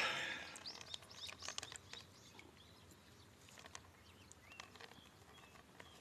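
Faint sounds: water swishing in a plastic gold pan fades out within the first second, followed by scattered faint drips and ticks and a few faint bird chirps.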